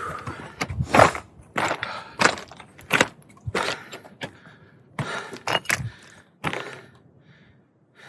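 A hiker's footsteps crunching on a gravelly trail, about one step every half to three-quarters of a second, fading out near the end.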